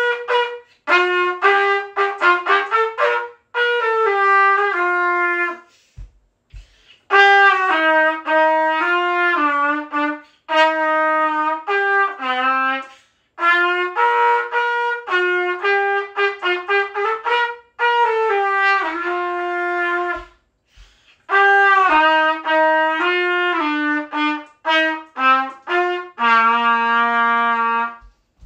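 Unaccompanied trumpet playing a melody in phrases of separate notes with short breath pauses between them, ending on a long held low note.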